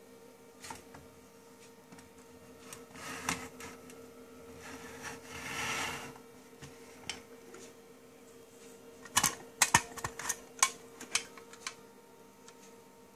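Battery-operated tin toy running, with a faint steady motor hum and wheezy toy-harmonica puffs about 3 and 6 seconds in. Then a quick cluster of clicks and knocks as the toy is picked up and turned over.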